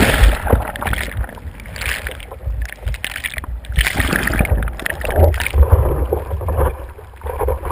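Muffled churning and gurgling of surf whitewater around a surfboard-mounted action camera in its waterproof housing as it is dunked under a broken wave, with heavy low rumbling surges of water.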